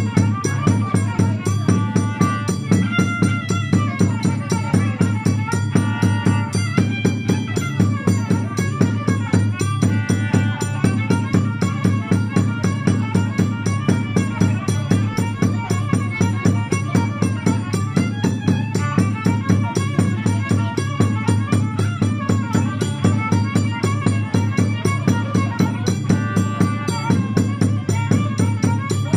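Horn violin (Stroh violin) playing a traditional Romanian folk melody over a steady bass-drum beat.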